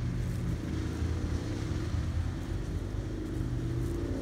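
A steady low mechanical hum, like a motor running, with no sharp knocks or clicks.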